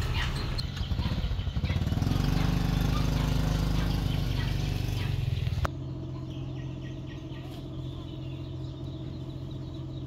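A motorcycle engine running close by, getting louder about two seconds in and cut off abruptly about halfway through. A quieter steady engine hum follows, with faint bird chirps.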